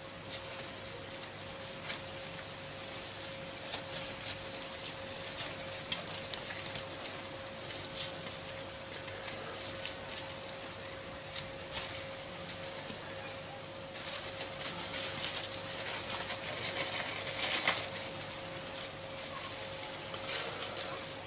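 Cling film crinkling and crackling with light clicks from a bamboo sushi mat's slats as a sushi roll is rolled up and pressed firmly by hand; the crinkling grows busier and louder about two-thirds of the way through as the film is wrapped around the roll. A steady hum runs underneath.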